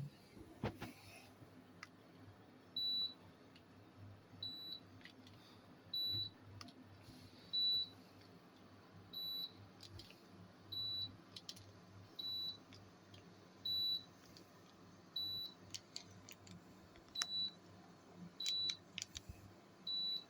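Electronic beeper giving a short high beep about every one and a half seconds, twelve times in a row, with faint scattered clicks between the beeps.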